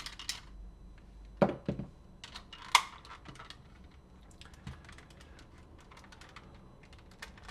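Batteries being taken out of a Sony WM-FX491 cassette walkman, whose two AA cells give its 3 volts: plastic clicks and knocks from the battery compartment and the cells. Two louder knocks come about one and a half and three seconds in, then a run of small, light clicks.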